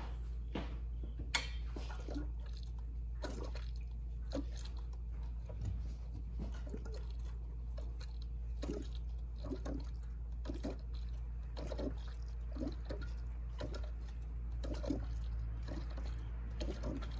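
Coolant gurgling and bubbling in a funnel on the degas bottle as the upper radiator hose is squeezed, pushing trapped air out of the cooling system: irregular small squishes and pops over a steady low hum.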